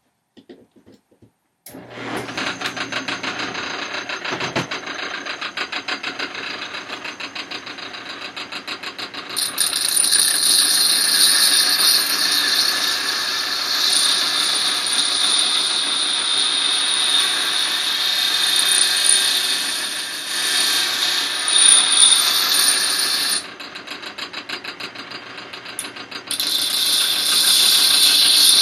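A sharpening grinder starts up about two seconds in and runs steadily with a low hum. A steel blade pressed against it gives a loud, harsh, high grinding hiss for a long spell. The grinding eases off for a few seconds near the end, then resumes.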